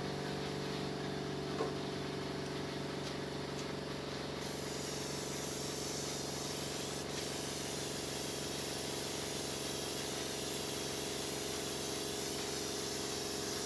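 A machine's motor running steadily, a constant hum of several tones over a hiss. The hiss turns brighter about four seconds in, and there is a single light knock early on.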